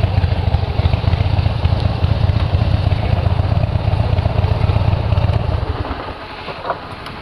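Harley-Davidson V-twin motorcycle idling with a rapid low pulse from its exhaust, then switched off about six seconds in.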